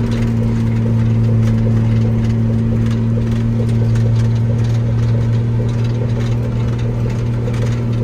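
Diesel engine powering a silage bagger, running steadily at wide-open throttle with a constant low drone.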